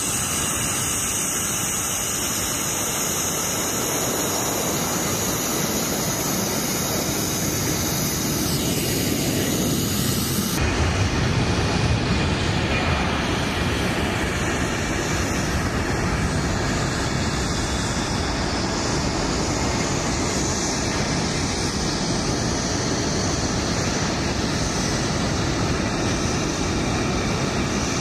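Turbofan engines of heavy military jets at takeoff power: a steady jet roar from a climbing KC-10 tanker, which changes abruptly about ten seconds in to the deeper roar of a large four-engine transport on its takeoff roll and climb-out.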